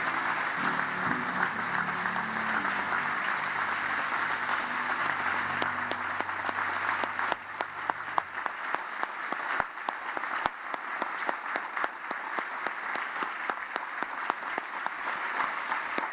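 Audience applauding: a dense standing ovation that thins out to separate, scattered claps in the second half. Low music plays under the clapping and stops about eight seconds in.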